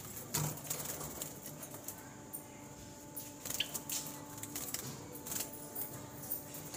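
Java sparrows moving about in a small wire cage: scattered short high chirps mixed with light clicks and rattling of the wire mesh.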